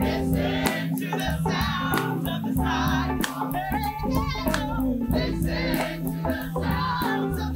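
Choir singing with band accompaniment: held, wavering vocal notes over a sustained bass line and a steady drum beat.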